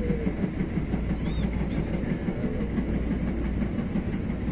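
TE-90 light-rail train running along the track, a steady low rumble of wheels on rail with some clickety-clack. A faint brief high squeal comes through about a second in.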